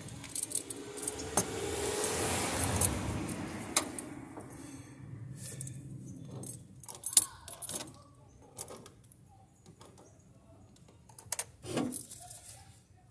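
Irregular metallic clicks and clinks of needle-nose locking pliers working a truck battery's terminal clamp loose, with a sharper clack about seven seconds in and another few near the end. A broad rushing noise swells and fades over the first few seconds.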